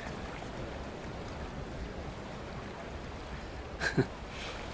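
A steady, low background hiss, broken about four seconds in by one brief man's vocal sound.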